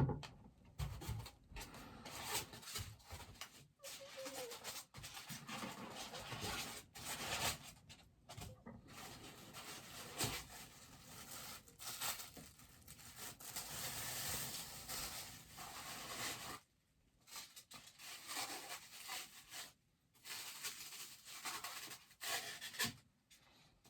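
Hands unpacking and handling a boxed bobblehead: irregular rustling, rubbing and tearing of the packaging, with a couple of brief pauses about two-thirds of the way in.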